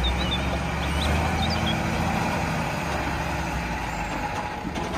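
Diesel engine of an XCMG QY50K truck crane running steadily, a low, even drone.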